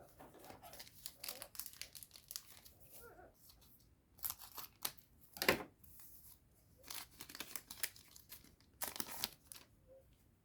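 Foil trading-card booster pack wrapper being torn open and crinkled by hand, in several short rustling bursts, the loudest about five and a half seconds in.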